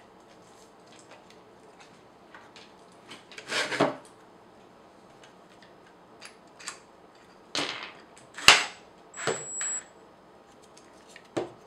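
Metal rods, nuts and a 3D-printed plastic frame being handled and set down on a table: scattered clicks and short clatters, the sharpest a single click about eight and a half seconds in.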